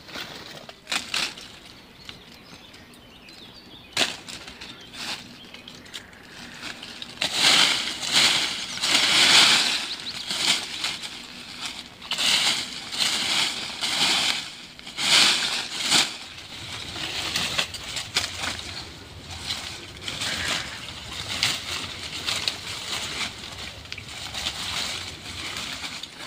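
Dry leaf litter, twigs and branches rustling and crackling in irregular bursts as a person pushes through undergrowth and gathers sticks from the forest floor, with a few sharp snaps.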